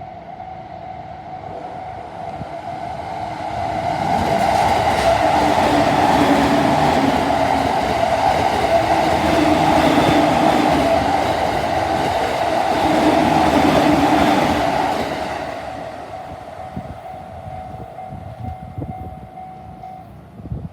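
A JR Tokaido Line train passing through a level crossing, loud from about four seconds in until about fifteen seconds, while the crossing's warning bell rings steadily throughout; the bell stops near the end.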